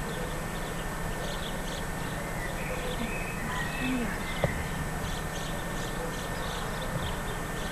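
Small birds chirping repeatedly in the background over a steady camcorder hum, with a brief voice sound about four seconds in and a single sharp click just after.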